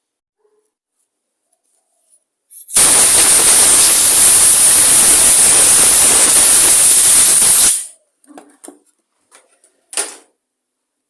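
Compressed-air blow gun blasting a long steady hiss of air for about five seconds, blowing loose dirt off a small engine's carburettor and fuel tank, then cutting off. Light clicks and a short second puff follow near the end.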